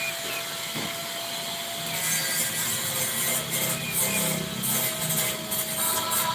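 Metalworking tool noise from fabricating a steel spiral staircase: steady scraping and grinding, a little louder from about two seconds in.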